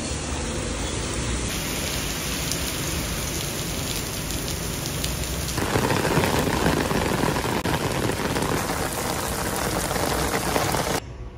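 Heavy rain pouring down on pavement, a dense steady hiss. About halfway through it grows louder and fuller as it drums on an open umbrella overhead, then cuts off abruptly near the end.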